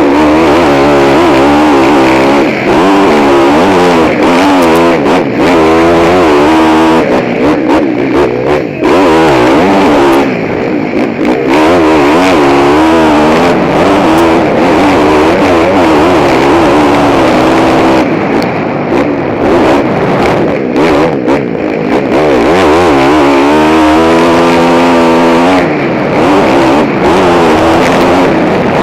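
KTM motocross bike's engine heard close up from the rider's helmet, revving hard and falling off again and again as the throttle is worked through the lap, with a couple of brief lulls off the throttle.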